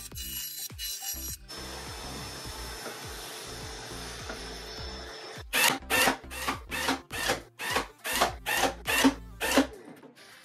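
A bandsaw cutting through a plywood panel with a steady noise. About five and a half seconds in, a handheld electric staple gun fires about ten staples into plywood in quick succession, two to three a second, each a sharp loud bang.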